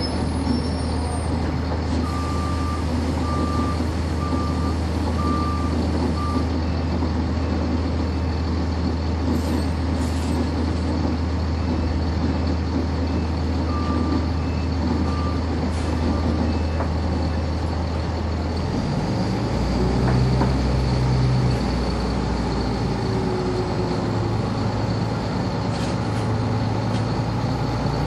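Interior sound of a 1999 NovaBus RTS transit bus's Cummins ISC inline-six diesel running at a steady idle, with a run of short, evenly spaced high beeps a few seconds in and again around halfway. About two-thirds of the way through, the engine note rises and turns rougher as the engine picks up.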